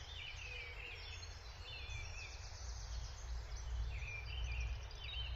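Songbirds singing in short, warbling phrases over a steady low rumble.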